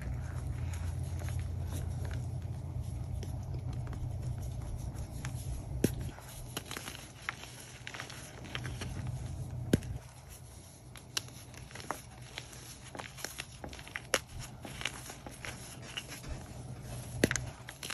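Blocks of Pro Source gym chalk coated in iron oxide powder being squeezed and broken apart by hand: soft crumbling and crunching with many sharp cracks as pieces snap off. A low rumble lies under the first half and drops away about ten seconds in.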